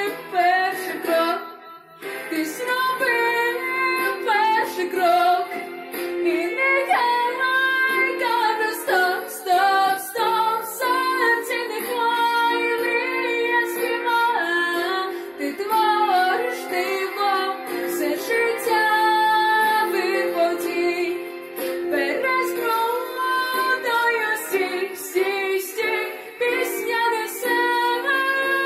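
A woman singing a song over instrumental accompaniment, her voice dropping out briefly about two seconds in before she carries on.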